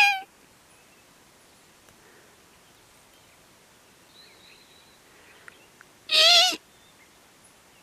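Sika deer mew calls: short, high-pitched bleats about half a second long. The end of one comes right at the start and a full one comes about six seconds in.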